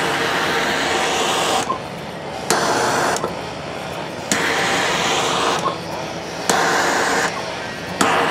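Handheld gas torch flame hissing as it scorches dark stripes into a carved cedar raccoon's tail. The hiss jumps abruptly louder in several spells of about a second each and drops back in between.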